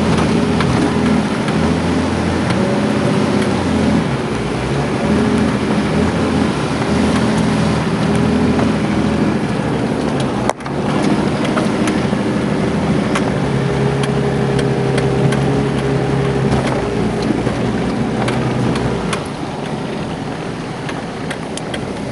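4x4 vehicle's engine running as it drives an off-road trail, its pitch rising and falling, with scattered knocks and rattles. The sound breaks off for an instant about halfway through and drops slightly in level near the end.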